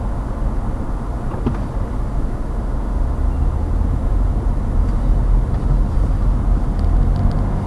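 Steady low rumble of a moving car's road and engine noise, as picked up by a dashcam microphone inside the car.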